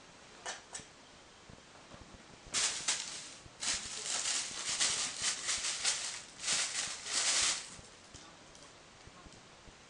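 Thin plastic bag crinkling and rustling in a quick, irregular run of bursts as a kitten rolls on it and wrestles with it, for about five seconds beginning a couple of seconds in. Two small clicks come just before it.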